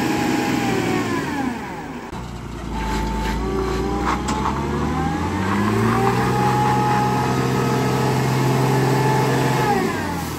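Diesel engine of a heavily loaded 14-tyre lorry working under load: its note falls and dips about two seconds in, climbs over the next few seconds, holds high, then falls away near the end.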